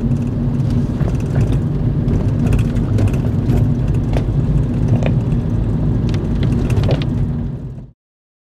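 Car cabin noise while driving: a steady low rumble of engine and tyres with a steady hum, dotted with scattered light clicks. It cuts off suddenly near the end.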